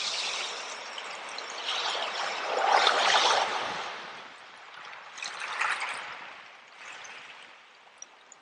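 Running water trickling and splashing in uneven swells, loudest about three seconds in and again near six seconds, then dying down near the end.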